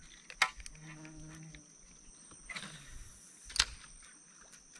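Forest insects, crickets or cicadas, sounding as two steady high-pitched tones, with two sharp knocks, about half a second and three and a half seconds in.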